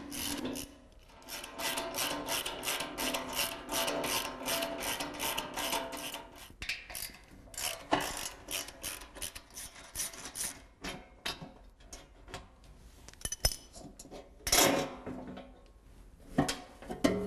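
Hand ratchet clicking steadily, about four clicks a second, as the bolts holding an engine's accessory belt cover are backed out. The clicking thins out after about ten seconds. A few louder knocks of the loosened cover follow near the end.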